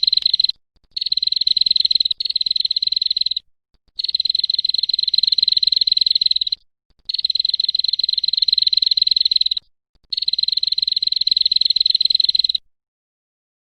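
An animal call used as masteran (song-tutoring material for songbirds): rapid, buzzy pulsed trills in six bouts of one to two and a half seconds with short pauses, stopping shortly before the end.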